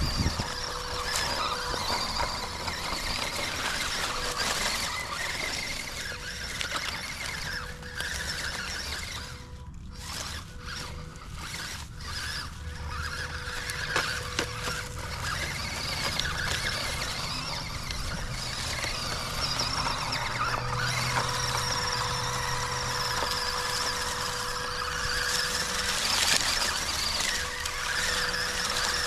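Small electric RC crawler truck driving over a dirt trail: its motor and gearbox give a steady high whine over the scrape of tyres and chassis on the ground. The sound breaks off in a few short gaps about ten to twelve seconds in.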